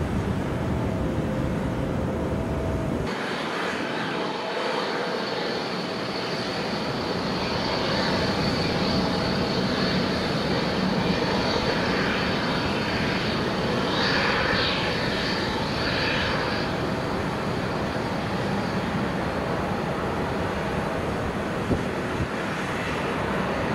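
Jet airliner engines during a landing at the runway: a steady rushing noise, with a high engine whine that comes in about three seconds in and stops about two-thirds of the way through.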